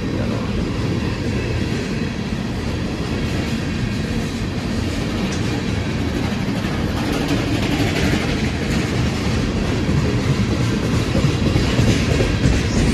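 Tank cars of a slow freight train rolling past, a steady low rumble of steel wheels on the rails, with a few sharp wheel clacks over rail joints near the end.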